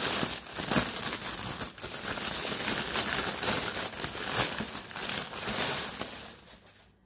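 Thin clear plastic bag crinkling and rustling as it is pulled open and off a stack of plastic meal-prep containers, dying away near the end.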